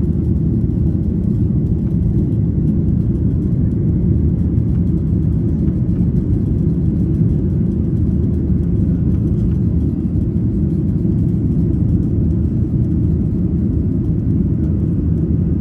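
Steady jet engine and airflow rumble inside an airliner's passenger cabin, low and even throughout.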